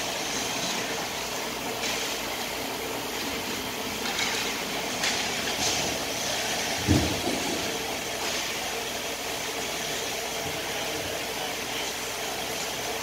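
Ice hockey play on an indoor rink over a steady arena hum: several brief hissing scrapes of skates on the ice, and a single low thud about seven seconds in, the loudest sound.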